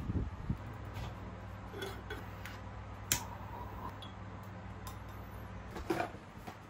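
Light clicks and clinks of small objects being handled over a steady low hum, with a sharp click about three seconds in as a jet lighter is sparked to light a candle in a glass jar.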